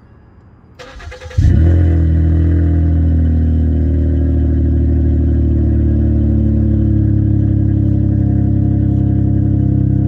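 A car engine is cranked briefly by its starter, catches about a second and a half in with a short flare, then settles into a steady idle. It is heard close to the exhaust tailpipe.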